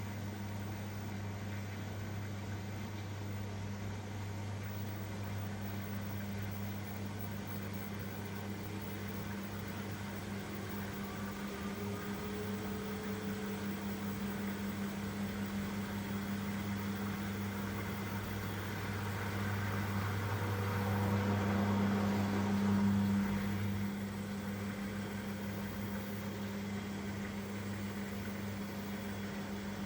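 Elin washing machine running between rinse stages, a steady low hum that swells briefly about three-quarters of the way through and then settles back.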